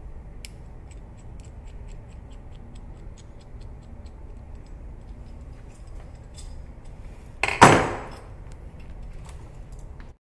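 Metal hand tools being handled on a workbench: scattered light clicks and ticks, then one loud clatter about seven and a half seconds in as tools are shifted and the flaring tool is picked up. The sound cuts off suddenly near the end.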